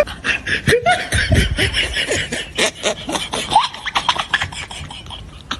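People laughing, mixed with many rapid short clicks and knocks; the sound cuts off suddenly at the end.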